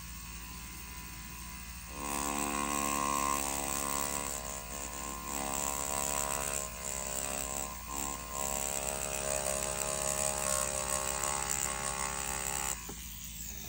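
Mast Archer rotary tattoo pen machine running with a ballpoint pen cartridge as it draws lines on paper: a steady motor buzz that starts about two seconds in and cuts off shortly before the end.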